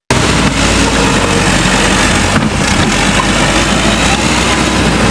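Skid steer loader engine running steadily. The sound cuts in abruptly at the start.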